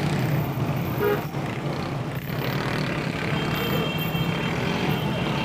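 Street traffic ambience: a steady low engine hum with passing-vehicle noise and faint voices in the background.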